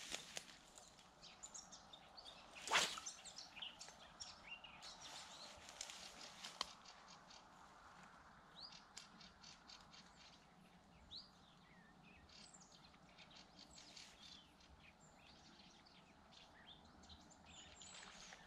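Small birds chirping and calling, many short high chirps and quick rising and falling whistles. One sharp click about three seconds in is the loudest sound.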